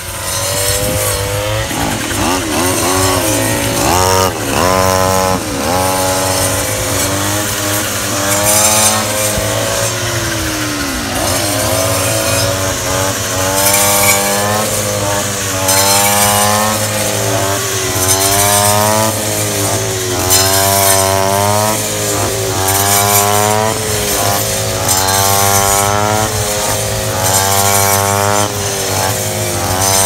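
Several petrol brush cutters running together while cutting standing rice, their engines revving up and down every second or two as each blade bites into the stalks.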